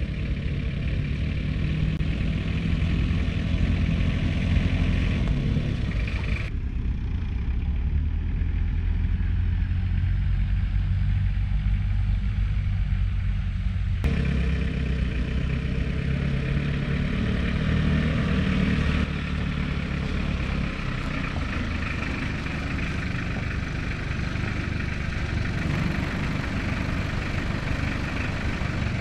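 Small jeep's engine running steadily as it drives along a dirt track and pulls up, with the sound changing abruptly about six and fourteen seconds in.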